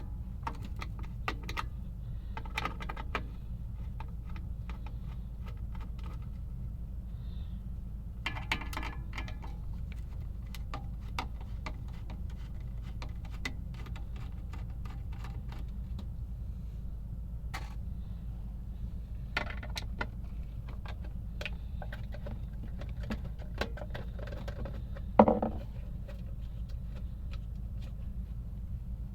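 Scattered metallic clicks, clinks and rattles of hand tools, screws and metal parts being handled while the amplifier is taken apart, with one louder knock near the end, over a steady low hum.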